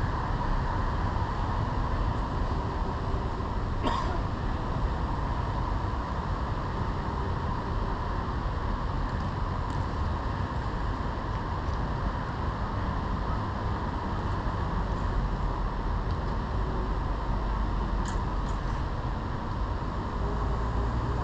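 Steady rumbling background noise, with one sharp knock about four seconds in.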